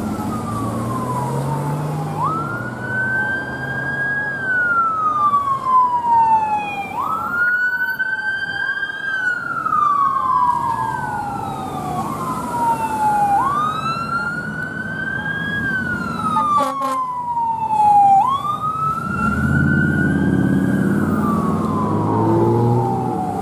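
Emergency vehicle siren on a slow wail, each cycle rising quickly and falling slowly, about every four to five seconds. A vehicle engine rumbles underneath near the start and again near the end.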